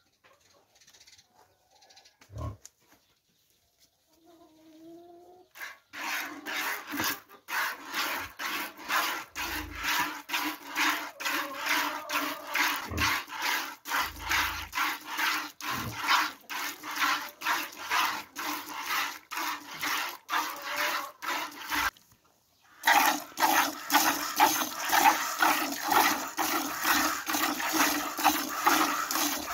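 Milk squirting into a plastic bucket as a cow is milked by hand, in short, even strokes about two or three a second. The squirts start about six seconds in, pause briefly, then come back louder near the end.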